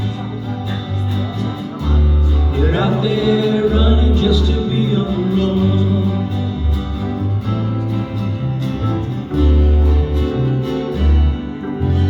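Instrumental ending of a country-folk song, led by acoustic guitar over a steady run of low notes.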